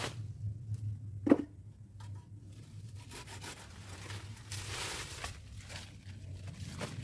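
Leaves and twigs of a tree rustling as it is pruned by hand, with one sharp click about a second in and a longer rustle of foliage a little past the middle, over a low steady hum.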